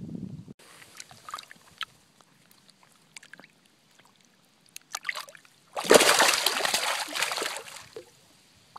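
Shallow water splashing around a hand-held largemouth bass: small drips and splashes, then a loud burst of splashing about six seconds in that lasts about two seconds.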